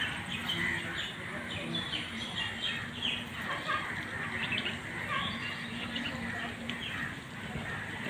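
Birds chirping: many short calls overlapping throughout.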